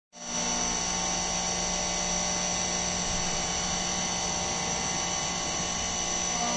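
CNC vertical mill face-milling an aluminium plate with a face mill under flood coolant: a steady machining whine with several fixed tones that hold an even pitch throughout, starting abruptly.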